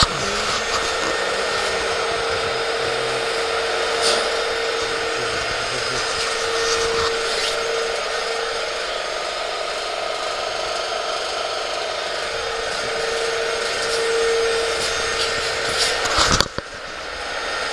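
Alcatel DRYTEL100 dry vacuum pump running, a steady whir with a constant mid-pitched tone and a few light clicks. Near the end there is a brief sharp noise, and the sound drops to a quieter level.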